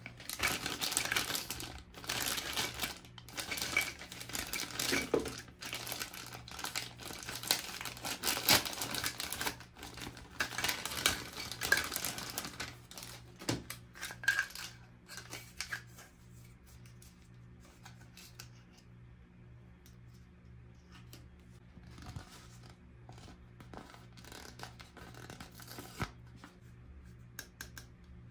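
Toy packaging being opened and handled: dense crinkling, rustling and clicking of plastic and cardboard for about the first sixteen seconds, then only a few faint clicks.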